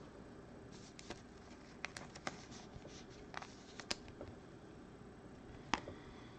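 Stiff glossy Topps Finest baseball cards being slid and flicked past each other by hand: soft, scattered clicks and rustles, the sharpest one near the end, over a faint steady room hum.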